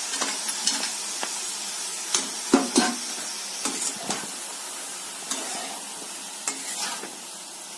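A flat spatula stirring and scraping rice in a metal kadhai as fried dry fruits are mixed into sweet rice, with scattered scrapes and knocks over a steady sizzle from the hot pan.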